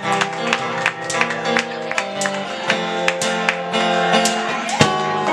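A folk band playing live: strummed acoustic guitar and sustained chords under a steady beat, an instrumental passage with no singing.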